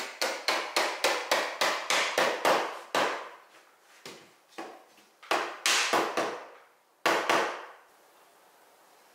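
A quick run of sharp wooden knocks, about three a second for the first three seconds, then a few single knocks further apart. It is a dry-fitted hardwood frame being tapped at its joints to knock it apart.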